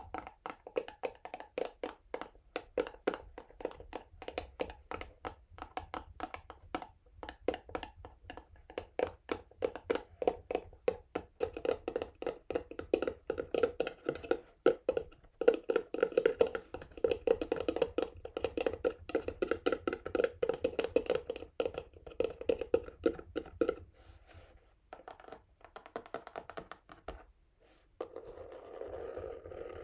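Fingernails tapping rapidly on a textured cardboard box, many quick taps a second. The taps thin out about three quarters of the way through, and near the end the nails scratch across the box.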